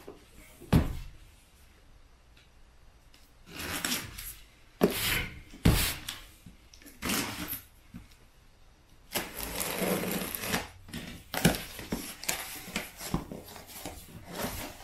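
Cardboard shipping box being opened by hand: short scrapes and knocks as a blade is worked along the packing tape, a longer scraping stretch about two-thirds of the way through as the tape is slit, then the rustle of the cardboard flaps being pulled open.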